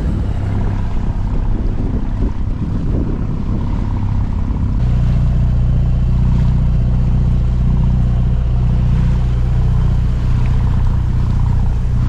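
Inboard diesel engine of a 34-foot sailboat running under way, with wind gusting over the microphone; about five seconds in the engine's low drone gets louder and steadier.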